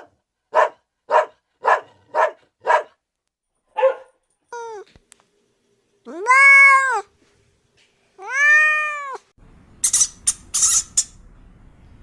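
Domestic cat meowing: a run of short mews about half a second apart, then two long meows that rise and fall in pitch. Near the end a few short, sharp high-pitched sounds follow over a faint background hiss.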